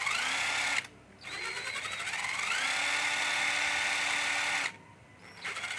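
12V cordless drill run in short trigger pulls. The motor whines up in pitch, holds a steady speed and stops, three times: one run cuts off just under a second in, the next rises and holds for about three seconds, and a third starts near the end. It turns freely without catching or wobbling.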